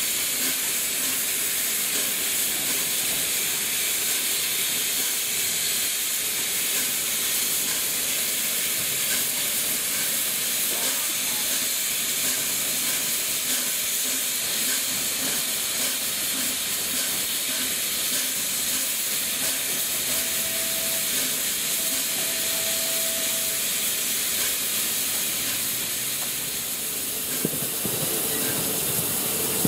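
LNER A4 Pacific steam locomotive standing with steam hissing steadily from its boiler, typical of blowing off at the safety valves. Near the end it starts to move off, and chuffs and steam from the open cylinder drain cocks begin.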